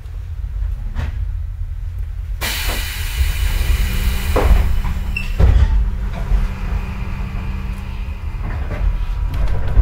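6050-series electric railcar at departure: over the car's steady low rumble, a sudden loud hiss of compressed air starts about two and a half seconds in and fades slowly over several seconds, with a couple of knocks. This is the air system releasing as the train readies to leave.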